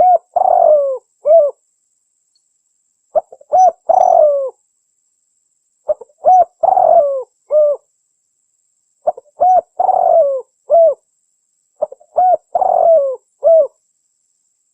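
Spotted dove (tekukur) cooing, recorded as a female's call for luring males. Five phrases come about every three seconds. Each phrase is a short coo, a longer slurred coo and a short final coo.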